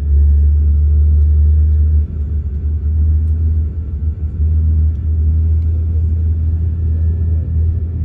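Airliner cabin noise aboard a Boeing 737-400 on the ground: a loud low rumble with a faint steady whine above it. The rumble eases and turns less even about two seconds in.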